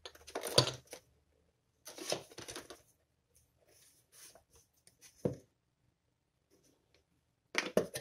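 Souvenir fridge magnets clicking and clattering against one another as they are handled and picked through, in several short spells of a second or less with quiet gaps between, the loudest just at the start and near the end.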